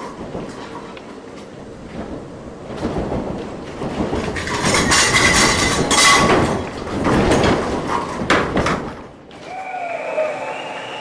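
Six-storey light-frame wood building shaking on a shake table in a simulated earthquake: a rumble full of rapid rattling and knocking that builds up, is loudest from about four to nine seconds in, then stops abruptly.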